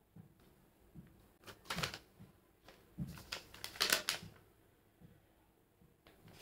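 Dried peel-off face mask crackling and rustling as it is pulled off the skin and handled, in two short bursts about one and a half and three seconds in, with a few small clicks between.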